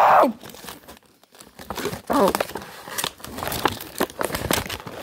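Plastic packaging crinkling and crackling in irregular rustles as an action figure is pulled free of its box and plastic tray.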